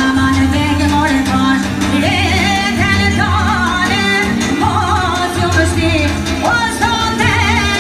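A woman singing an ornamented, wavering melody with vibrato into a microphone, amplified over live band accompaniment with a steady bass line.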